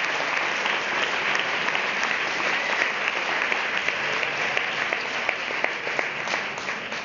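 Audience applauding: a dense, steady mass of clapping that starts to thin out near the end.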